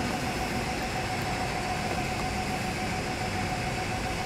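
Drill press running at low speed, about 750 rpm, feeding a twist drill down into aluminum bar stock. A steady hum with a steady whine, no knocks or breaks.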